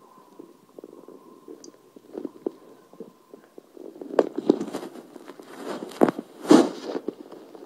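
Stomach gurgling and bubbling from soda just chugged: soft, irregular gurgles, then louder, sharper bursts from about four seconds in.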